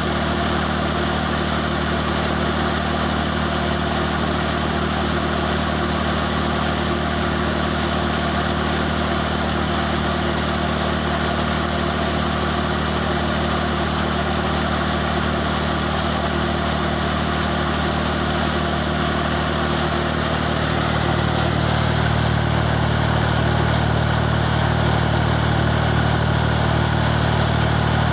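Mobile lighting tower's generator engine running steadily. About twenty seconds in, its low hum grows a little louder and fuller, then holds.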